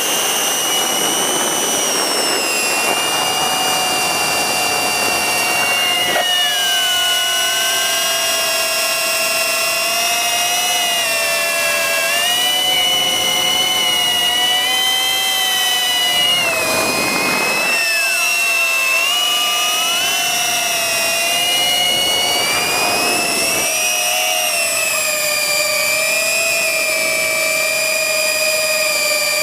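FPV quadcopter's brushless motors and propellers whining steadily, with several high tones that rise and fall together as the throttle changes.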